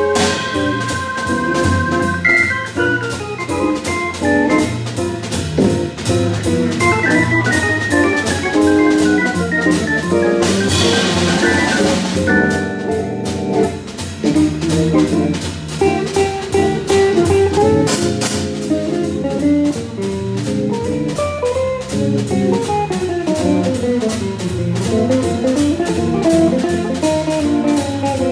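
Live jazz combo playing: a stage keyboard with an organ sound carries moving melodic lines over a drum kit keeping a steady beat. A louder cymbal wash swells about eleven seconds in.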